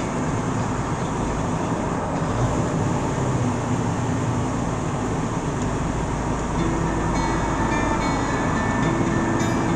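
Steady road and engine rumble heard from inside a vehicle driving at highway speed.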